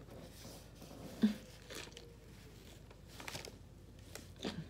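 A person biting into and chewing a loaded sub sandwich, with soft crunches and wet mouth sounds and one short low knock about a second in.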